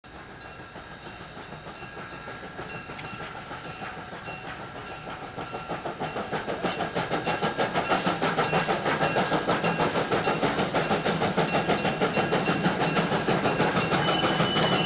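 US Army 2-8-0 steam locomotive No. 610 coming on at speed: fast, even beats that grow louder over the first eight seconds or so, then hold, with high ringing tones over them and a steady high tone near the end.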